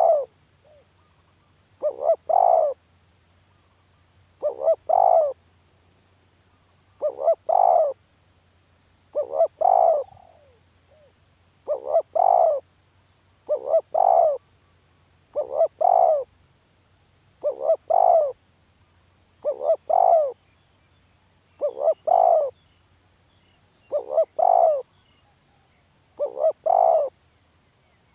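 Spotted dove cooing: a short phrase of a few quick coos, repeated steadily about every two and a half seconds.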